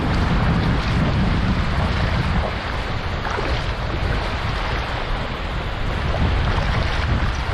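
Shallow surf washing in over sand, with wind rumbling on the microphone.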